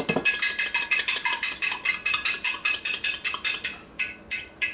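A metal fork beating an egg in a small glass measuring cup, clinking against the glass quickly and evenly, about six times a second. The beating stops shortly before the end, with a couple of last taps.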